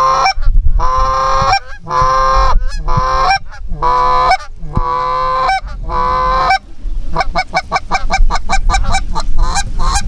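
Canada goose honking: long, loud honks about once a second, then from about seven seconds in a quick run of shorter, higher honks.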